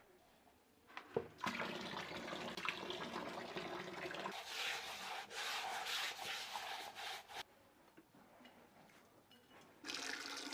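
Hands mixing fish bait in a basin: a rubbing, scraping sound lasting about six seconds. It comes again briefly near the end.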